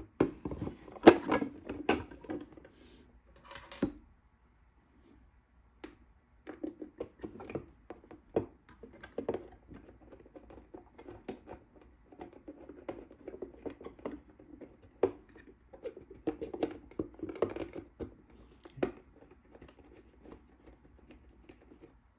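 Hands handling a clear plastic storage box with a small hygrometer mounted in its wall: irregular plastic clicks, taps and scraping, loudest about one to two seconds in, with a short pause around four seconds in.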